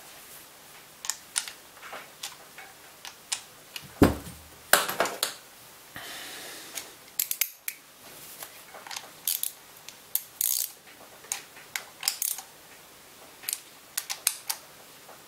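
Irregular clicks and knocks of a metal scraper body and hand tools being handled on a workbench during reassembly, the loudest a knock about four seconds in.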